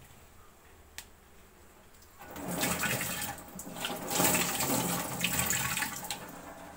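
Water running and splashing for about four seconds, starting about two seconds in, after a single sharp click about a second in.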